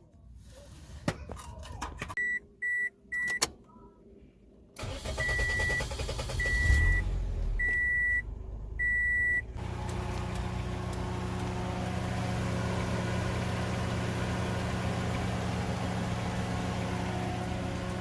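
Car's warning chime beeping, three quick beeps and then slower evenly spaced ones. Meanwhile the engine cranks and starts about five seconds in, then settles to a steady idle.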